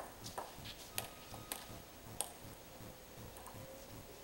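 Four light, sharp clicks of a celluloid table-tennis ball bouncing between points, spread irregularly over the first two seconds or so, then only faint hall tone.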